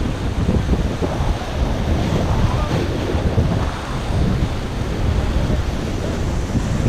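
Rushing river water around a raft during white-water rafting, with wind buffeting the microphone in a steady low rumble.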